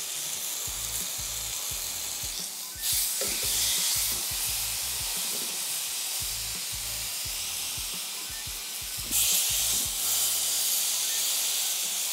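Dry-rubbed beef pieces sizzling steadily as they sear in a hot oiled frying pan. The sizzle jumps louder about three seconds in and again about nine seconds in.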